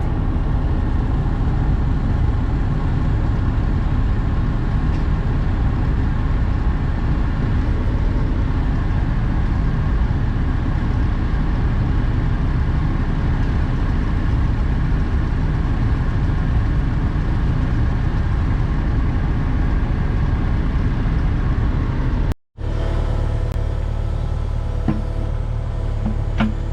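Excavator's diesel engine running steadily at idle, a close, even rumble. About 22 seconds in the sound cuts out for an instant and gives way to a different steady engine drone.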